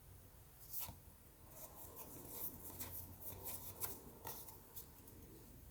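Faint rustling of a stack of baseball trading cards handled and slid against each other, with many soft flicks and ticks and one slightly louder flick about a second in.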